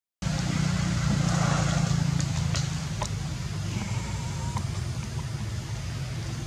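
A macaque gives a short, high call about four seconds in, over a steady low rumble.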